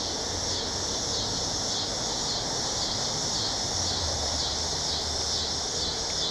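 Steady outdoor ambience: a high-pitched insect chorus with a faint pulsing texture over a steady low rumble.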